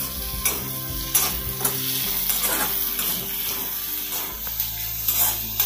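Sliced onions, capsicum and cashews sizzling as they are stir-fried in a wok over a high gas flame, with repeated scrapes and clinks of steel tongs against the pan.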